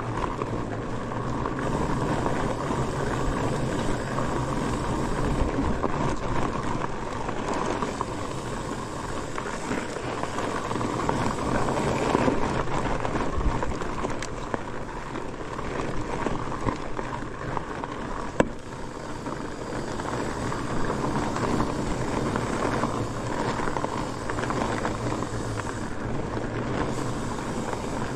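Fat bike rolling along a snowy, icy trail: a steady rolling noise of its wide tires on the snow and ice, with one sharp knock about two-thirds of the way through.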